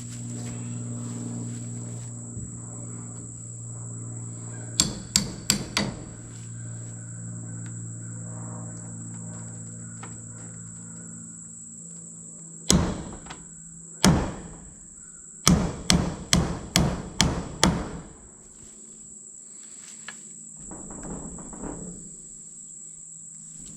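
Hammer blows on wood while a temporary brace is fixed under a porch post: a quick run of four strikes about five seconds in, two single blows near the middle, then about six rapid strikes. A steady high insect buzz runs underneath.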